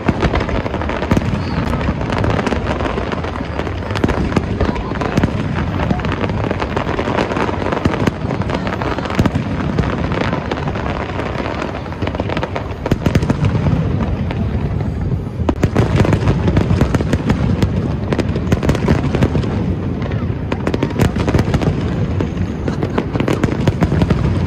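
Aerial fireworks shells bursting in a rapid, continuous barrage of booms and crackles. The barrage gets denser and heavier about halfway through.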